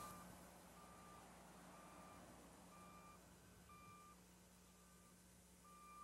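Near silence with a faint vehicle reversing alarm beeping about once a second.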